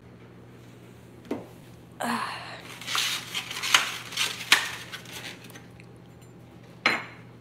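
A cooking utensil scraping and clinking against a pan, with a few sharp clinks among the scrapes, over a steady low hum.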